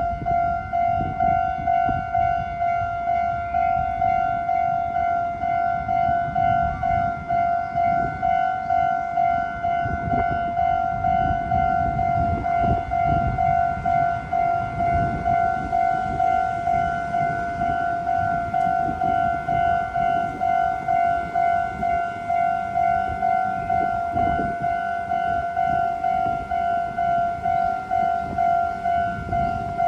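Railroad crossing warning alarm ringing, one clear pitch repeating in an even, rapid 'kan-kan-kan' pulse, with a low rumble underneath.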